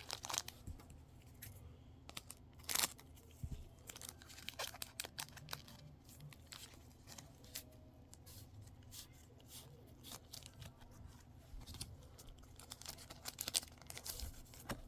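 Pokémon trading cards being handled and slid one over another, faint scattered rustles with light clicks, as a freshly opened booster pack is flipped through.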